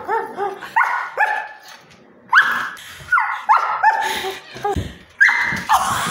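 A dog barking repeatedly at a cat, about ten short high barks with a brief pause about two seconds in.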